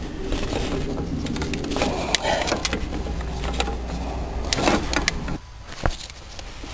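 Replacement halogen headlight bulb being worked into its socket in the headlight housing by a gloved hand: a run of small plastic clicks and scrapes as it is pushed in and twisted clockwise, over a low steady rumble that stops about five seconds in, then one sharp click.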